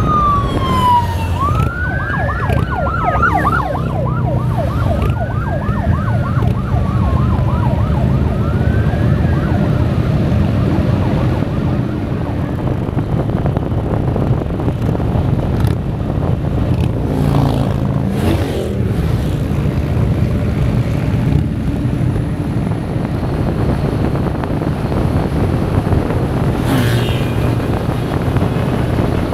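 Police motorcycle siren wailing, rising and falling about every two seconds and fading away over the first ten seconds as the officer pulls ahead. Under it, the steady engine and wind noise of the riding motorcycle.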